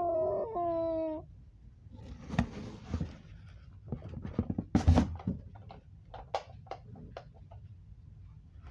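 A drawn-out, wavering, cat-like cry that breaks off about a second in, followed by scattered knocks, clicks and rustling.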